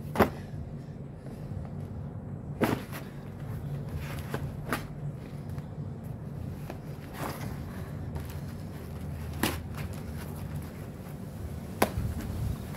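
Cardboard box being crushed flat on concrete, cracking and creasing under body weight and hands: about six sharp cracks a couple of seconds apart, the loudest just after the start, over a low steady rumble.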